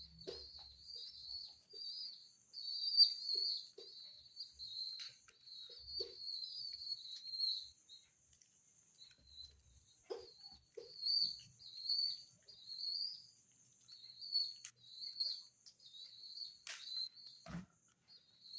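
Pigeon squab making high, thin begging squeaks in quick repeated strings while being hand-fed, with a few soft knocks and a sharper one near the end.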